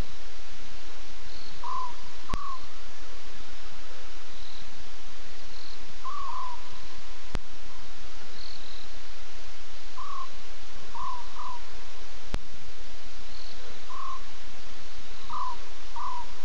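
Short chirping calls of small night-calling animals, single and in pairs, about one every second or two, over a steady hiss, with a sharp click about every five seconds. No lion calling is heard.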